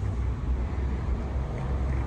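A low, steady rumble with no other distinct event.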